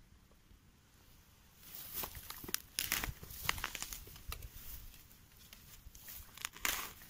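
Small hand shovel cutting into grassy turf and soil, crunching and tearing through roots and earth in a quick run of strokes that begins about a second and a half in.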